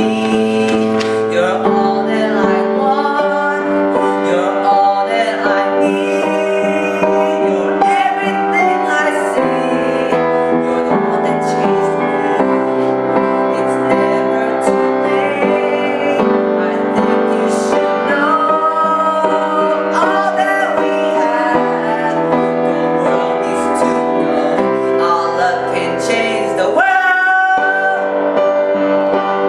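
A song with a singing voice over piano, the voice gliding between held notes.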